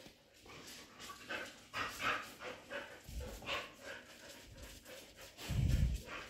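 A dog panting close by in short breathy puffs, about two a second, with a louder low muffled rumble near the end.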